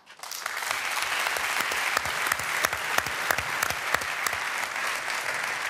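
Audience applauding steadily, many dense claps.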